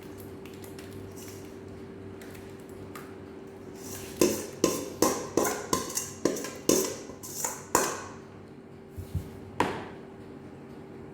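A kitchen utensil knocking sharply against a bowl or pan with a ringing tap, about a dozen quick knocks in a few seconds and then three more, while cassava cake batter is put into the baking pan. A steady low hum runs underneath.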